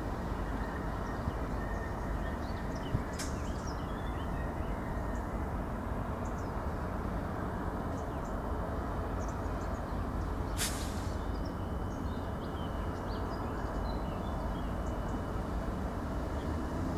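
Steady low rumble of a DART electric multiple unit slowly approaching on the line, with faint bird chirps over it. A short sharp hiss comes about ten seconds in.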